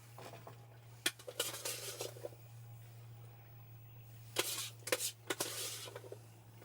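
Cutlery and dishes clinking in a few sharp knocks: one about a second in, then a quick cluster of three near the end. A steady low hum runs underneath.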